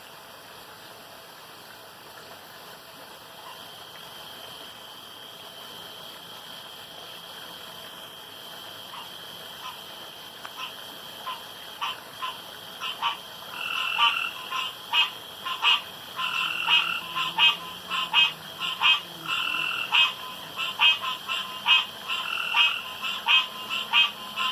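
Male frogs croaking in a chorus that builds from a few scattered calls into loud, rapidly repeated croaks, about two a second, from about halfway through. They are males competing, each trying to croak the loudest for the longest.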